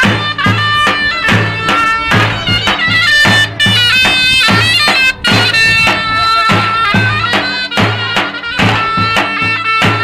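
Davul bass drum and zurna playing halay dance music: the drum beats a steady rhythm while the zurna plays a melody of held and moving notes.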